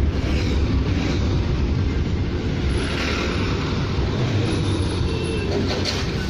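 Steady engine and road noise of a car driving, heard from inside the cabin, with the rumble of surrounding traffic.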